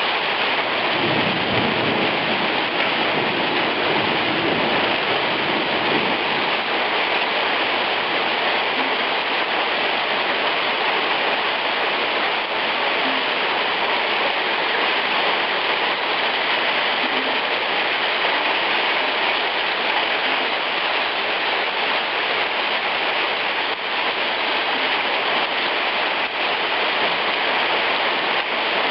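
Heavy hailstorm: hail and rain pelting a stone-paved street in a dense, steady hiss-and-patter. A low rumble of thunder rolls under it in the first few seconds.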